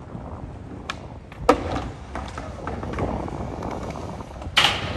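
Skateboard wheels rolling on concrete with a steady low rumble, broken by a sharp clack of the board about one and a half seconds in and a louder clack near the end.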